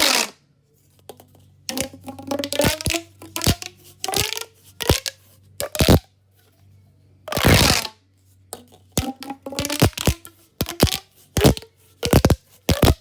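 Fidget toy being handled up close: a string of short, irregular crinkling and clicking noises, some with a brief squeaky tone, with short pauses between them.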